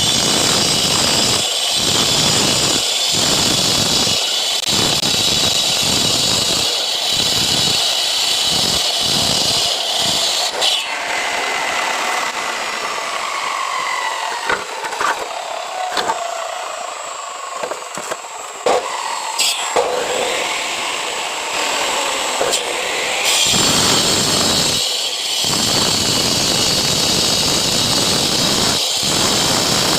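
Masonry disc cutter sawing through concrete paving blocks: a high whine with a grinding noise that pulses as the disc bites. About ten seconds in it is switched off and winds down in falling tones, with a few sharp knocks. About two-thirds through it starts again and cuts on.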